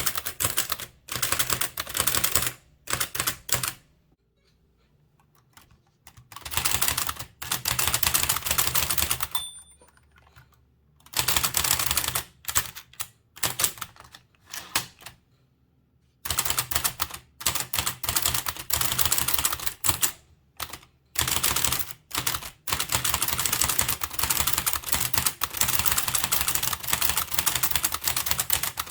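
Blickensderfer typewriter being typed on in runs of rapid, clattering keystrokes, several a second, each key driving the type cylinder against the paper. The runs are broken by pauses of a second or two.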